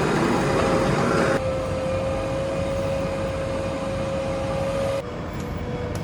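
JCB backhoe loader's diesel engine running steadily under a high, even whine. The sound drops abruptly about a second and a half in and again near the end.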